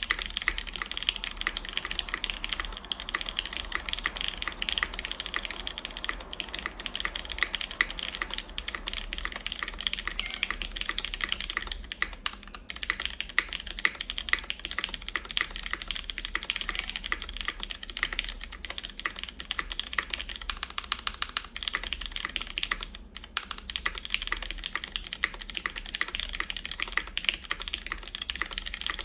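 Continuous typing on a CannonKeys Blaine v2 SE mechanical keyboard in its top-mount configuration, with lubed Cherry MX Brown switches, an aluminum plate and GMK keycaps: a rapid stream of keystroke clacks. It pauses briefly about twelve seconds in and again around twenty-three seconds.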